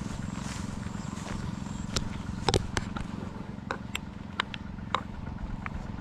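A steady low motor-like hum, with a scatter of sharp clicks and taps starting about two seconds in.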